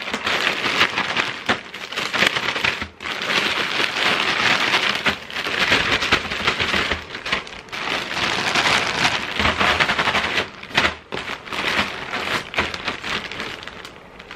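Coated Rice Chex cereal and powdered sugar rattling and rustling inside a zip-top plastic bag being shaken hard, in surges with short pauses between, dying down near the end.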